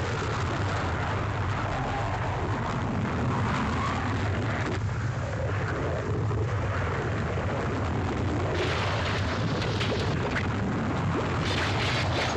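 Volcanic eruption sound effect: a continuous deep rumble laced with crackles. The crackling grows sharper and denser in the last few seconds.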